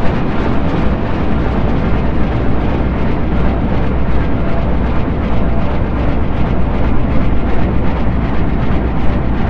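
Sci-fi spaceship cruising sound effect: a loud, steady deep rumble with a low hum under a rushing hiss.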